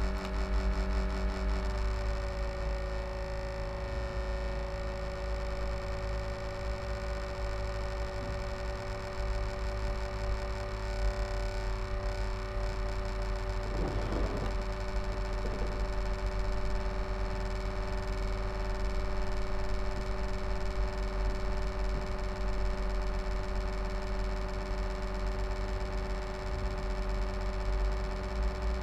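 HP Envy m6 laptop cooling fan running with a steady hum of several held tones over a low rumble, its pitch dropping slightly about two seconds in. This is the strange fan noise whose cause the owner does not know.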